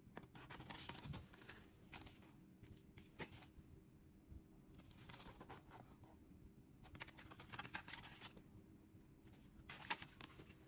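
Soft, intermittent rustling and sliding of a cardboard CD sleeve and paper insert being handled, with a sharp tap near the end.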